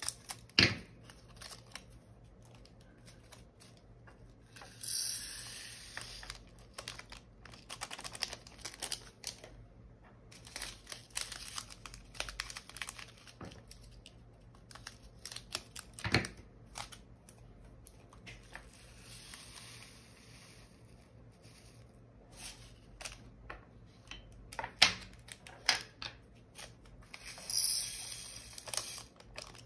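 Small plastic bags of diamond-painting resin drills being handled, crinkled and emptied: rustling and crinkling in bursts of a second or two, with a few sharp plastic clicks.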